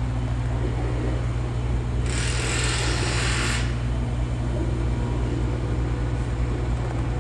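Steady low engine hum of construction machinery, with a burst of hissing about two seconds in that lasts under two seconds and then stops.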